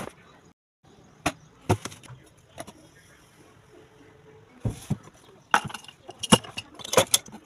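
Knocks and clatter of things being handled and set down on a shelf: a few separate knocks, then a busier run of clicks and rattles near the end as a glass jar of paintbrushes is moved.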